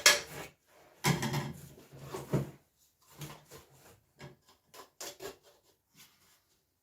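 Parts of a diesel heater kit and their packaging being handled: a sharp knock at the start, a spell of rustling and clatter, then scattered small clicks and taps.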